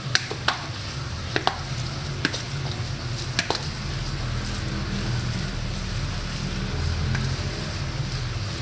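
Metal spoon stirring a wet raw ground-meat meatball mixture in a plastic bowl, a steady moist squelching and scraping, with several sharp clicks of the spoon against the bowl during the first few seconds.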